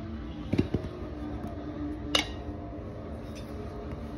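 Light knocks and one sharp metallic clink about two seconds in, from tools and hands working on a spoked dirt-bike wheel while a tire is levered off the rim.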